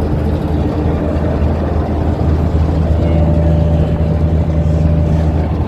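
Boat engine running steadily with a low hum; a steady higher tone joins about three seconds in and stops shortly before the end.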